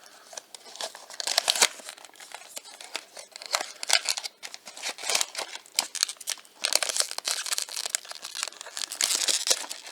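Packaging crinkling and tearing in irregular bursts as a blind box is opened by hand.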